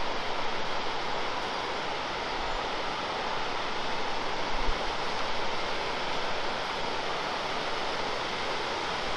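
Waterfall and mountain stream water rushing in a steady, even roar, with a brief low bump about halfway through.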